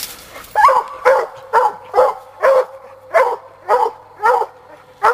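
Black and Tan coonhound barking at the tree: short chop barks about two a second, starting about half a second in, the steady bark of a hound with a raccoon treed.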